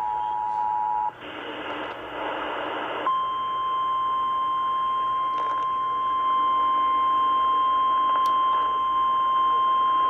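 The tail of the two-tone EAS attention signal, cut off about a second in by a two-second burst of radio static. Then a steady single-pitched alert tone, the NOAA Weather Radio 1050 Hz warning alarm, holds for the rest.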